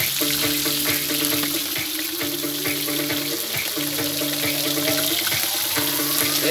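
Halfbeak (sayori) fish frying in a wok, the oil sizzling steadily, with music playing in the background.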